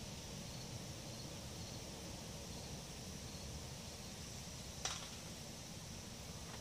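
Quiet outdoor ambience: a steady hiss with faint high chirps, and one sharp click about five seconds in.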